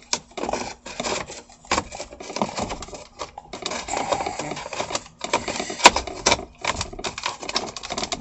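Small plastic parts clicking and rattling as a replacement Jeep Wrangler mirror toggle switch and its bezel are handled and worked into place, with one sharp click about six seconds in.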